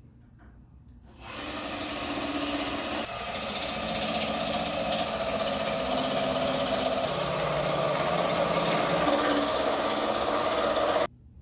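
Cordless drill running for a long stretch, a steady whir whose pitch shifts several times, starting suddenly about a second in and cutting off sharply near the end.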